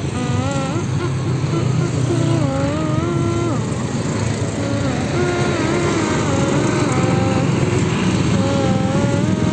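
Bus basuri (telolet) horn playing a flute-like melody of stepped notes, pausing briefly twice, over the steady low rumble of a passing Sinar Jaya coach's diesel engine.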